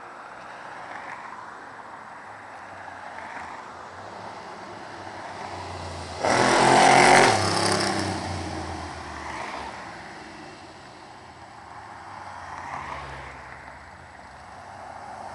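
V8 off-road trophy truck driving past close by on the street, its engine suddenly loud about six seconds in and fading as it moves away. Ordinary car traffic passes before and after.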